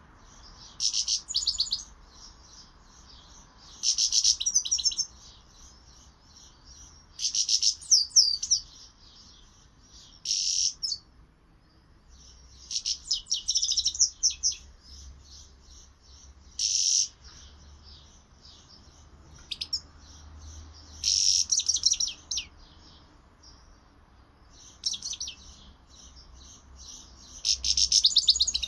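Grey-headed goldfinch singing: loud bursts of fast, high twittering about a second long, coming every two to four seconds, with softer twittering in between.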